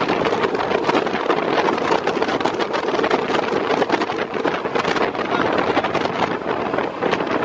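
Passenger train in motion: a steady, loud rumble and rattle of the running gear on the track, with wind buffeting the microphone.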